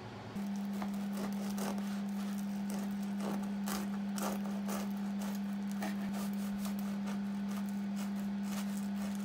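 A knife sawing through a crusty loaf on a wooden board, the crust crackling and scraping with each stroke. A steady low hum starts about half a second in and runs under the cutting.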